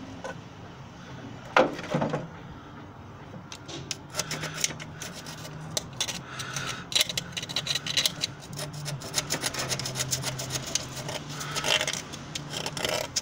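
A thin hand tool scraping and rasping over the Morris Minor engine's cast-iron cylinder block face and around the bores in quick short strokes, cleaning off deposits with the head removed. There are two sharper knocks about two seconds in.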